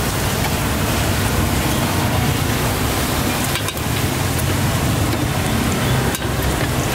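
Eggs sizzling in hot oil in a large steel wok, a steady hiss with a low hum beneath it.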